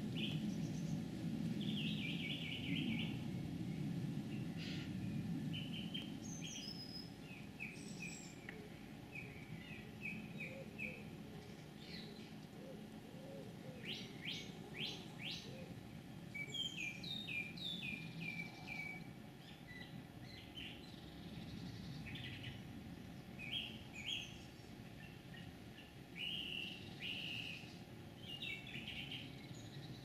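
Small songbird calling outside: short chirps and quick trilled phrases, repeated every second or so, which the uploader wonders may be a wren's. A low steady rumble lies underneath.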